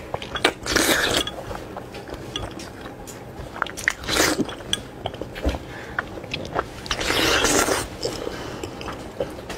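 A person biting, sucking and chewing braised pork knuckle skin with wet mouth clicks, and three louder slurps about one, four and seven seconds in.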